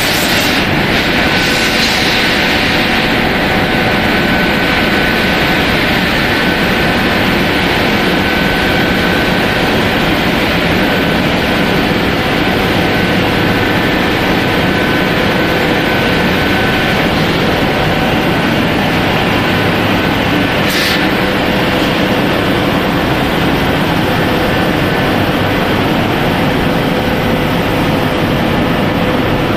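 Regenerated rice production line running: the steady, loud noise of the stainless-steel belt dryer, conveyors and their electric motors, with a faint steady whine.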